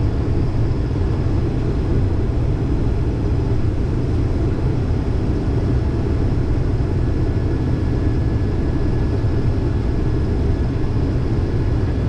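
Case IH 2388 combine running steadily while harvesting corn, heard from inside the cab as a constant low drone.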